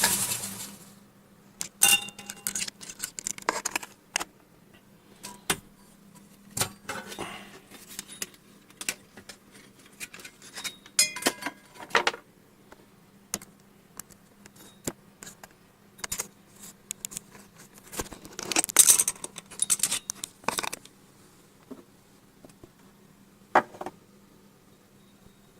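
A small belt grinder's motor winds down in the first second, then light metallic clicks, clinks and knocks of the machine and its parts being handled on a desk, coming irregularly with short pauses.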